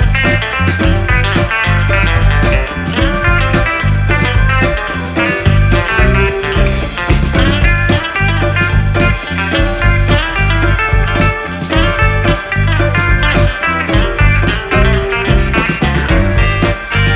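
Background music: a guitar-led rock-blues instrumental with a steady beat and heavy bass.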